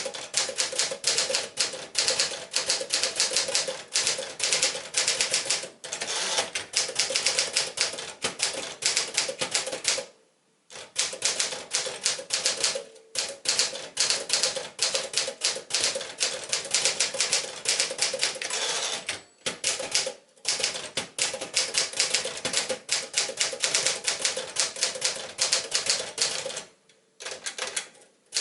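Sears Tower Commander (a reskinned Smith-Corona Sterling manual typewriter) being typed on: a fast, steady clatter of keys striking, broken by a few short pauses, the longest about ten seconds in and again near the end.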